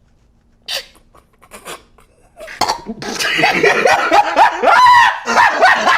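Loud, high-pitched wavering cries with sliding pitch, starting about two and a half seconds in after a couple of faint short noises.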